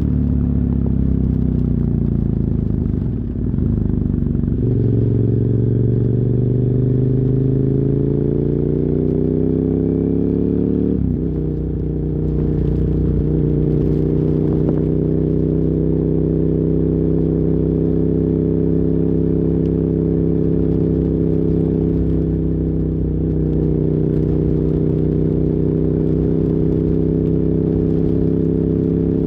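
KTM 990 Super Duke R's V-twin, through dual Yoshimura carbon exhausts, pulling the motorcycle along. The revs drop near the start, then climb steadily for several seconds, change abruptly about eleven seconds in, and hold at a steady cruise.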